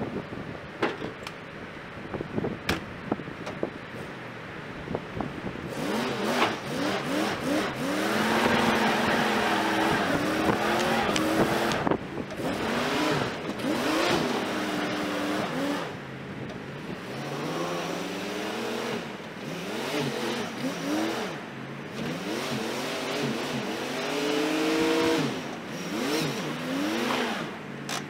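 Old two-wheel-drive Ford F250 pickup's engine revving up and falling back again and again as the stuck truck tries to drive out of soft ground, with a rush of noise during the first and loudest surge.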